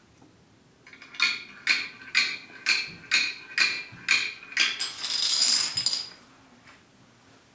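Plastic toy dominoes on a wooden floor: a run of sharp plastic clacks about two a second, then a quick rattling clatter about five seconds in as a row of dominoes topples.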